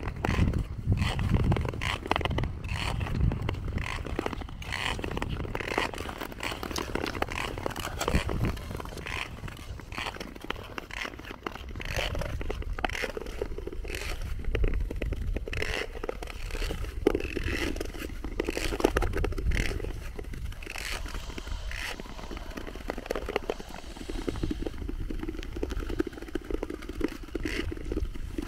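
Ice skate blades scraping and crackling across natural lake ice in repeated strides, the tour skates' long blades cutting in with each push.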